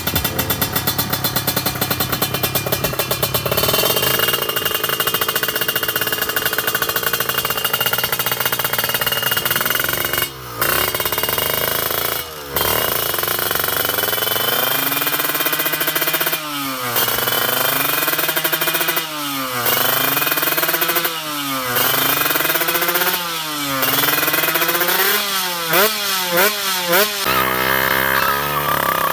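Kawasaki Ninja two-stroke engine, bored to 155 cc, revving hard and held high with two brief cuts. It then gets repeated throttle blips about every two seconds that rise and fall, and runs steadier near the end. This is a test of throttle response while the tune is being set.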